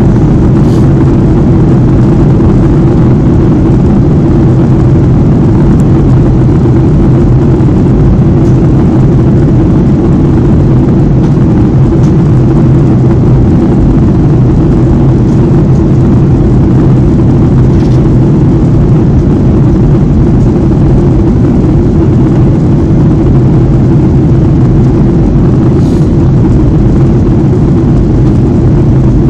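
Cabin noise of a Boeing 737-800 heard from a window seat over the wing during descent: a loud, steady drone of its CFM56-7B turbofan engines and airflow, with a strong low hum.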